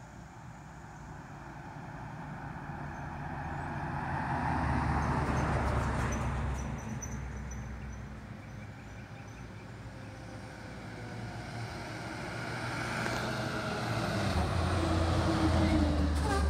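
Road vehicles passing close by. A pickup truck passes, loudest about five seconds in, and then a fire engine approaches, growing louder with its engine and tyres. Its engine note drops as it goes past near the end.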